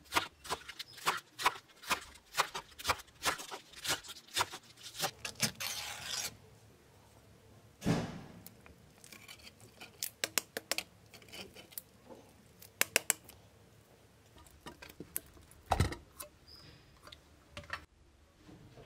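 Kitchen knife chopping iceberg lettuce on a plastic cutting board: a quick run of chops, two or three a second, over the first six seconds. Then scattered metal clicks and scrapes as a pull-tab can of luncheon meat is opened and handled, with one louder knock about sixteen seconds in.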